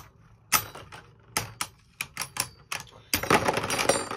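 Plastic Beyblade spinning tops clacking against each other and the walls of a plastic stadium: sharp single clacks about every half second, then a dense, rapid clattering about three seconds in as the tops clash hard.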